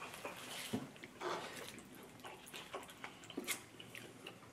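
Quiet eating sounds at a table: soft wet mouth sounds of chewing, with a few light clicks of chopsticks against dishes.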